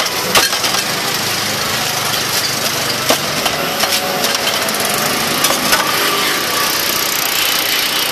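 Steady small-engine drone running close by, with a few light clicks and knocks on top.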